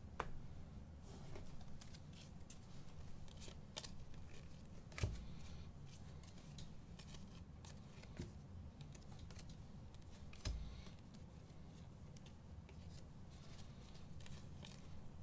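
A stack of 2021 Donruss Elite football trading cards being slid and flicked through by hand: faint clicks and rustles as the cards pass one another, with a soft thump twice, about five seconds in and again near ten seconds.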